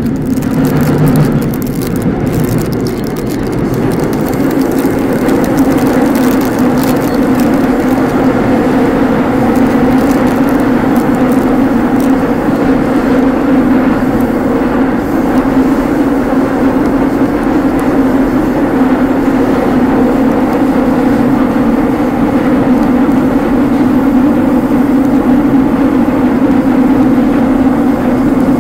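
Seoul Metro Line 5 subway train running between stations, heard from inside the car as a loud, steady rumble with a low hum. It builds over the first few seconds and then holds level.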